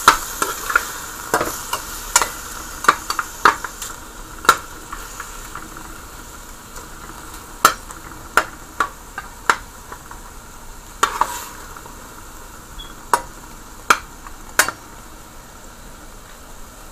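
Chunks of pressure-cooked beef sizzling in hot olive oil in a pan while being stir-fried, with a utensil clicking and scraping against the pan at irregular intervals. The clicks are thick in the first few seconds and grow sparser later. The meat is frying down until only the oil is left.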